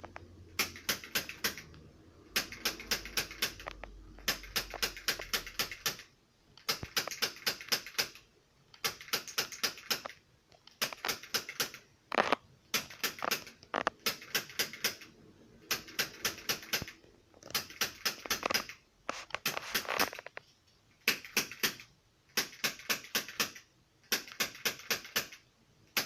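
Chiropractic adjusting instrument clicking in rapid runs, each about a second long, repeated every second or two as it works along the back.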